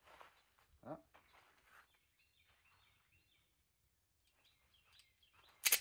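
A Ruger SR1911 .45 pistol being handled with a few faint clicks, then one sharp metallic clack near the end, while a stoppage is being checked. Birds chirp in the background.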